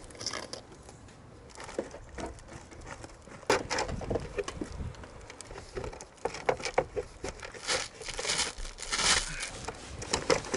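Roof vent flashing and asphalt shingles being handled: irregular crinkling, scraping and small taps as the flashing is worked in under the shingles.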